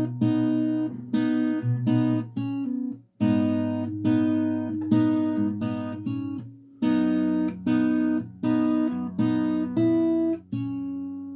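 Fingerstyle acoustic guitar playing an arpeggiated chord figure, plucked notes ringing into each other, with a short break about three seconds in.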